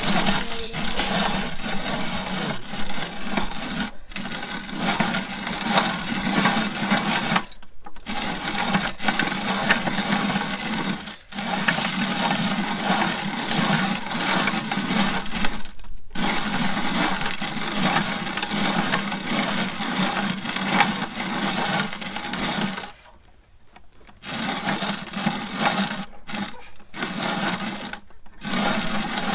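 Hand-cranked cast-iron corn grinder cracking shelled corn into cornmeal: a steady gritty grinding as the crank turns, broken by several brief pauses and a longer one about three-quarters of the way through.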